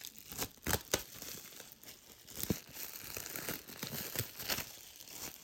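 Plastic wrapping being pulled and crumpled off a product box: an irregular run of crinkling and crackling, with a few sharper, louder crackles in the first second.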